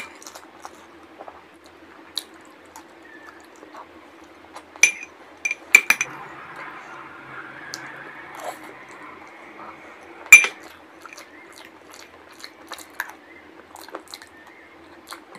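A spoon clinking and scraping against a small glass bowl as the last of the sewai is scooped out, with a few sharp ringing clinks, the loudest about ten seconds in. Soft chewing and mouth sounds of eating between the clinks.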